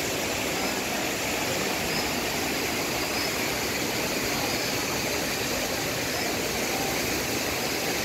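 Steady, even rushing noise with no breaks.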